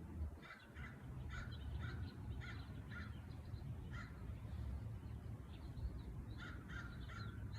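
A bird calling in short, repeated calls, about one a second, in two runs with a pause of about two seconds between them, over a faint low rumble.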